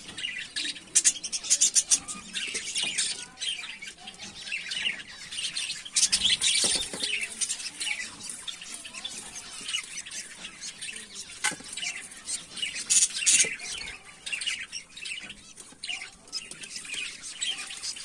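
Budgerigars chirping and squawking in rapid, overlapping calls, with a few short knocks about two-thirds of the way through.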